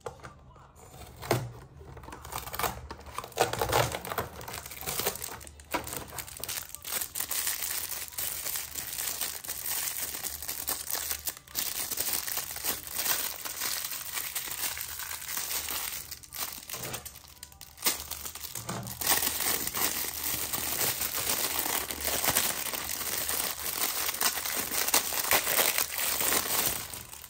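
Packaging crinkling and rustling as it is handled and opened by hand, in a dense, continuous run of crackles with sharper spikes.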